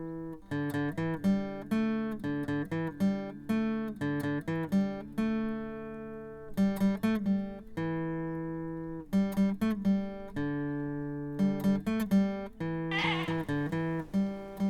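Intro music: a plucked acoustic guitar playing a melody of short, sharply picked notes that ring and die away, with a few longer held notes and a strummed chord near the end.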